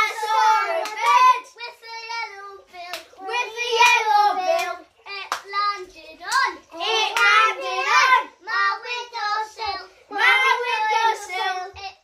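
Young children singing a rhyme together in high voices, line by line with short breaks between.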